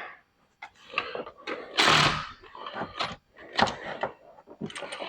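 Scattered clinks, clicks and knocks of metal hand tools and engine parts being handled, with a brief louder scrape about two seconds in.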